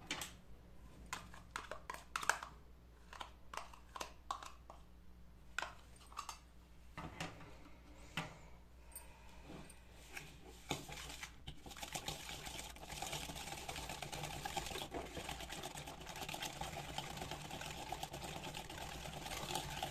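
Wire whisk in a plastic bowl: scattered clicks and taps for the first half as curd is tipped in and the whisk starts, then steady rapid whisking of the wet oil, powdered sugar and curd mixture, the wires clicking and scraping against the bowl from about halfway through.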